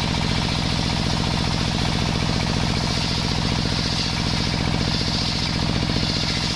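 Table-mounted circular saw ripping a sengon wood batten lengthwise: a steady hiss of the blade cutting through the wood over the rapid, even pulsing drone of the engine that drives it.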